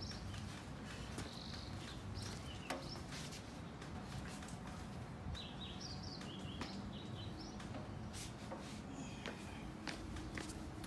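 Faint chirping of small birds over a low steady background hum, with a few light knocks.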